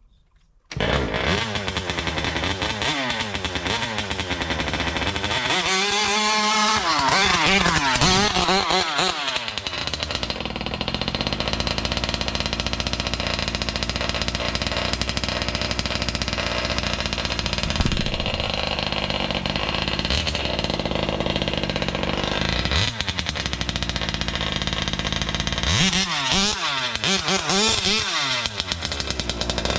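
Small 50cc two-stroke engine of a large-scale RC car running and revving hard, its pitch swinging up and down again and again. The engine sound cuts in just after the start, with the heaviest revving a few seconds in and again near the end.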